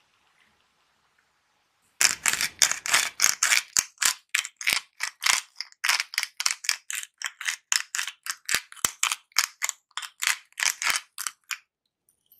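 Pink salt being ground from a hand-twisted salt grinder: a run of short grinding strokes, about three a second, starting about two seconds in and stopping shortly before the end.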